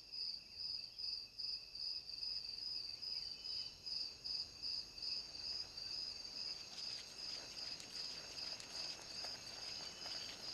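Crickets chirping at night in a steady, evenly pulsed high trill, about three pulses a second. Faint scattered ticks and rustles join in during the second half.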